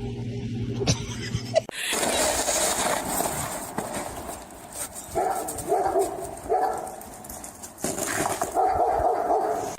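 A dog barking several times in short pitched calls, after a steady hum that cuts off about two seconds in.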